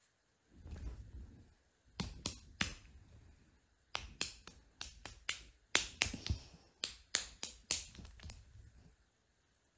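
A run of sharp clicks or taps, about three a second, starting about two seconds in and stopping near the end. A short low rumble comes just before them.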